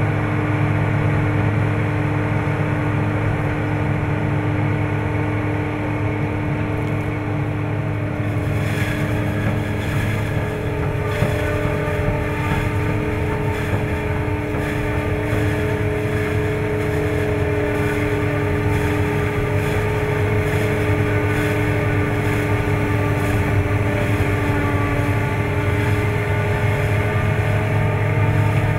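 New Holland FR 9080 self-propelled forage harvester running steadily under load while chopping sorghum: a loud, even engine and machinery drone that holds one pitch, with a deep rumble underneath.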